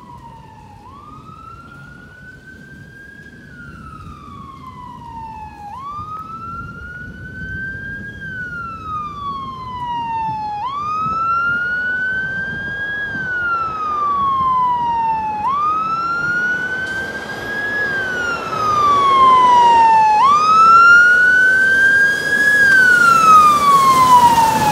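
Fire engine siren on a slow wail, each cycle rising quickly and then falling slowly, about every five seconds. It grows steadily louder as the truck approaches.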